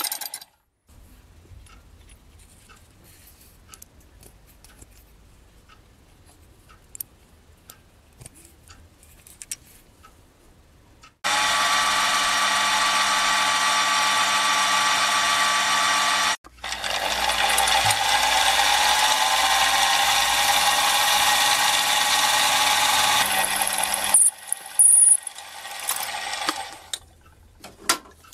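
Small milling machine running and cutting bronze bearing parts, milling grease pockets with a small end mill: a steady whine made of many tones. After a quiet stretch with faint regular ticks, the whine comes in two long stretches split by a brief break, with one tone rising in the second stretch, and it ends in scattered quieter cutting sounds.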